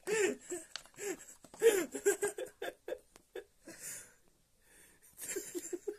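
A person's voice in short, unintelligible bursts, with a few light clicks from a phone and its box being handled.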